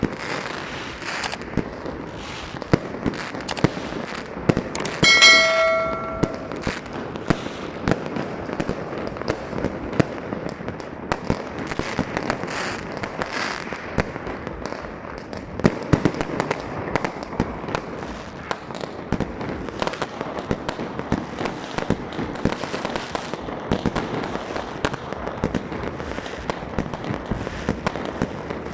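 Fireworks and firecrackers going off in a dense, irregular string of bangs and pops, with a brief bell-like ringing tone about five seconds in.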